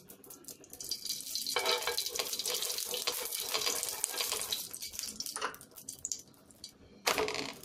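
Ghee sizzling on a hot non-stick tawa while a spoon spreads it around the pan, a crackling hiss that is loudest for a few seconds from about a second in and then dies down. A brief knock near the end.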